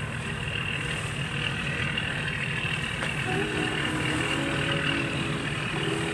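Tugboat diesel engine running steadily: a low, pulsing drone.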